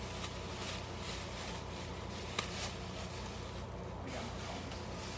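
Plastic shopping bag rustling and crinkling in short bursts as items are handled and pulled out, with one sharp click about two and a half seconds in, over a steady low hum.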